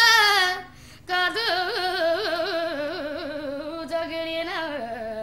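A teenage boy singing a Punjabi song unaccompanied in a high voice. He ends a held high note, pauses for a breath, then carries on with quick ornamental turns before dropping to a lower held note near the end.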